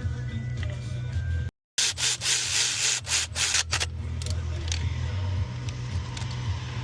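Scraping, rasping sound, loudest for about two seconds just after an abrupt cut, then fainter, over background music with a steady bass.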